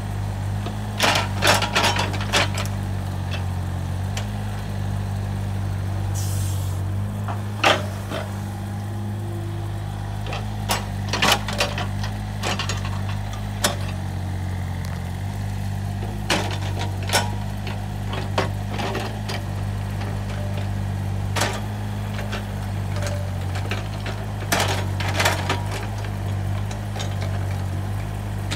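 Takeuchi TB135 mini excavator's diesel engine running steadily under working load, its pitch shifting slightly now and then. Many short, sharp knocks and clanks from the digging work sound over it, several in quick clusters.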